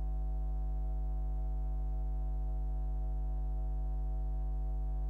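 Steady electrical hum: a low buzz with a stack of evenly spaced overtones at an unchanging level, with no court sound under it.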